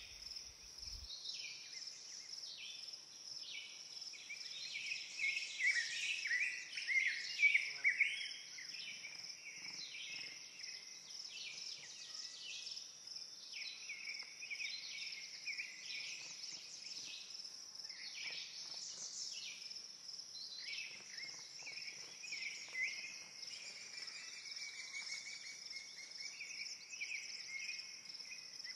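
Woodland birdsong: many short chirps and calls from several birds, busiest and loudest about six to eight seconds in, over a steady high-pitched drone.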